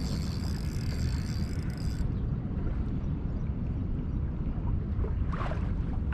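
Steady low rumble of wind buffeting the camera's microphone on a small boat on open water. A thin, high, wavering whine sounds over it for the first two seconds, and a short hiss comes near the end.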